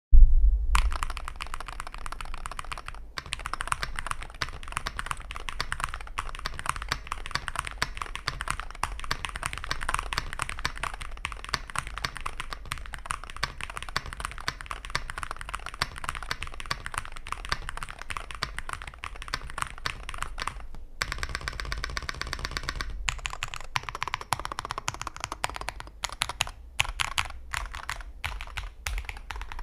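Womier SK75 TMR keyboard with Outemu HE magnetic switches, an FR4 plate and stock double-shot PBT Cherry-profile keycaps, typed on quickly: a dense run of keystroke clacks that turns into separate, more spaced keypresses over the last few seconds.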